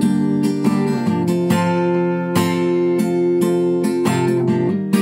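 Acoustic guitar strummed in a rhythmic pattern of down and up strokes, the chords ringing between strokes. The chord changes about a second in and again about four seconds in.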